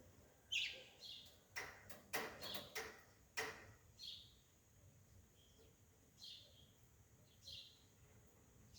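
Faint, short bird chirps, each a quick downward sweep, repeating every second or so, with a few sharp clicks between about one and a half and three and a half seconds in.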